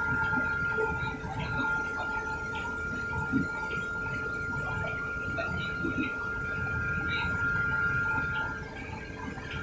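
Train locomotive running, heard from inside the cab: a steady low rumble under a constant high-pitched whine, with light scattered ticks and rattles.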